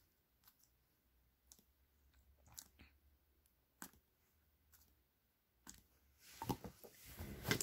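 Fingers pressing and pulling a lump of slime: faint, scattered little clicks and squishes that become louder and denser about six seconds in.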